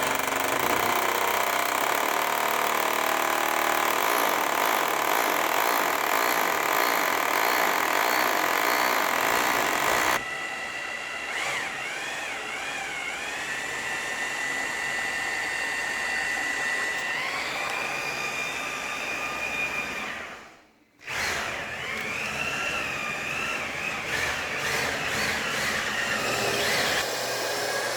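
Electric drill running steadily as it bores the hole for a rebar pin. About ten seconds in it gives way to a vacuum cleaner's steady whine, whose pitch wavers and steps up, cleaning out the dust. The sound cuts out briefly about three quarters of the way through.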